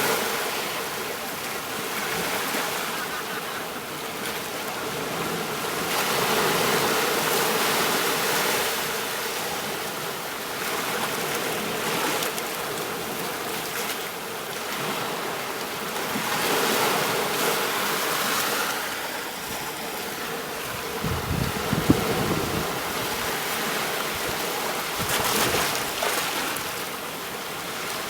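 Ocean waves washing onto a beach, a steady rush of surf that swells and falls back every few seconds. A brief low thump with a sharp tick comes about two-thirds of the way through.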